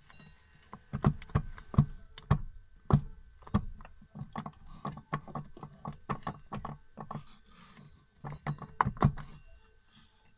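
Irregular metallic clicks and clunks from the output shaft and planetary gear set of a Chrysler A904 automatic transmission being turned and rocked by hand. The knocks are loudest in the first few seconds and again near nine seconds, and die away near the end.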